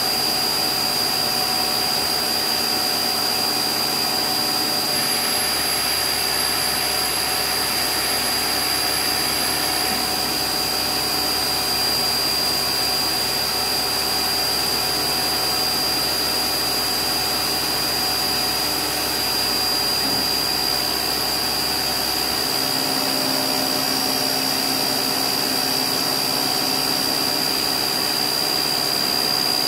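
Spindle of an LMW JV Kraft 5-axis vertical machining centre running at a steady speed while machining, with a steady high-pitched whine over a constant hiss.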